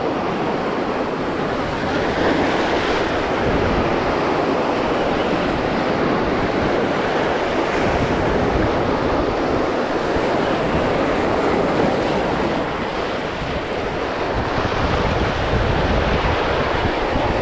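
Ocean surf washing and breaking over shore rocks in a steady rush that swells and eases, with wind buffeting the microphone.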